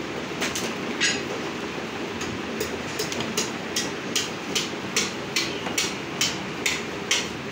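Quick, regular scraping strokes of a butcher's knife blade, about two to three a second from about two seconds in, over a steady background noise.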